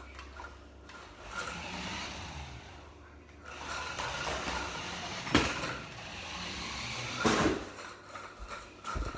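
Handling noise: things being moved and rummaged about, with two sharp knocks, about five and seven seconds in.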